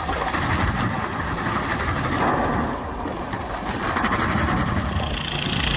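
Engine of heavy forestry machinery running steadily.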